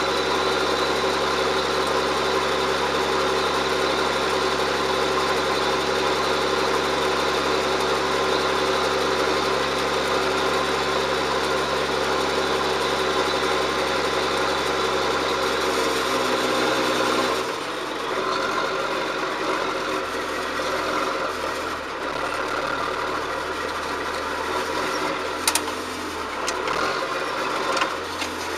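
John Deere 7710's six-cylinder diesel engine running steadily. About two-thirds of the way through, the engine note drops suddenly and it runs on more quietly, with a few sharp clicks near the end.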